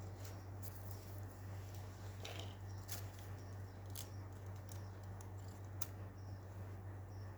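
Fidget toys being handled, giving a few scattered faint clicks and taps over a steady low hum.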